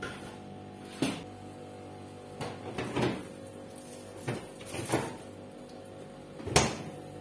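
A string of short knocks and clunks from a refrigerator being opened and something taken out of it. The sharpest and loudest clunk comes about six and a half seconds in. Soft background music plays underneath.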